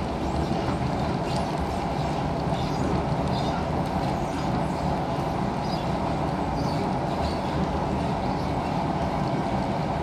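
Interior running noise of an SMRT C651 Siemens electric train under way: a steady rumble of wheels on rail and car body, with faint scattered ticks.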